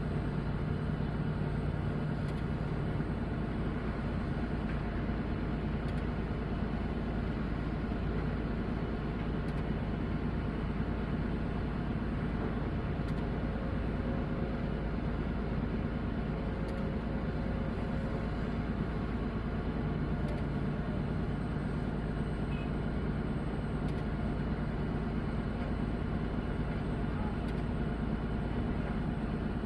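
Heavy diesel construction machinery running steadily, a continuous low engine drone that barely changes throughout.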